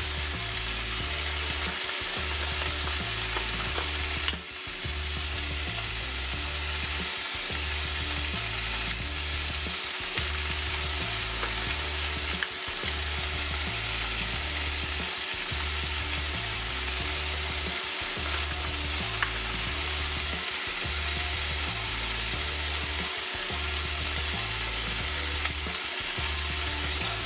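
Chicken breasts sizzling steadily as they fry in a hot skillet.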